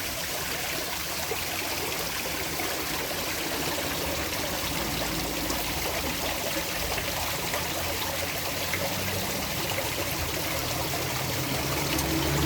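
Fountain water falling and trickling steadily into its pool.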